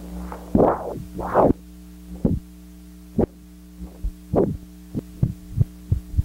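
Recorded footstep sounds on a magnetic film track played through a Moviola's sound head over a steady electrical hum, as the track is run to find the exact point where the footstep hits. The footsteps come as short thumps: a few longer ones in the first second and a half, then sharper ones coming faster near the end.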